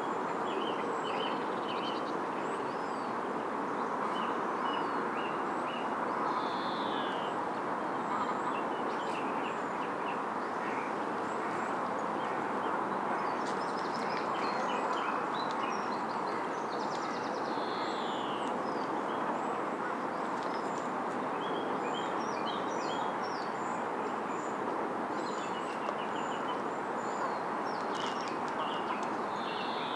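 Small birds chirping and calling again and again over a steady rushing background noise.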